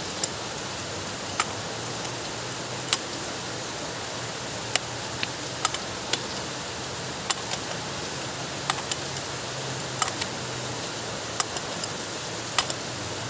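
Socket ratchet on a steering rack's pinion fitting giving scattered single sharp clicks, irregular and roughly one a second, over a steady hiss.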